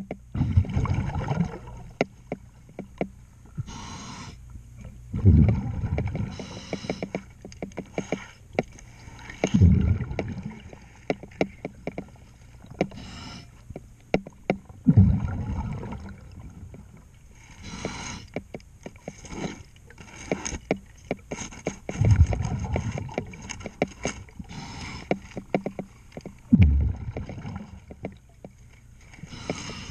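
Scuba diver breathing through a regulator underwater: a loud burst of exhaled bubbles about every five seconds, with fainter hissing inhalations between them and many sharp clicks throughout.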